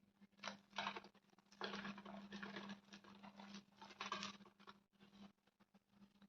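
Soft chalk being crushed and crumbled, faint because it was recorded on a phone's own microphone: two short crunches about half a second in, a longer run of crumbling, then another crunch around four seconds in. A low steady hum sits underneath.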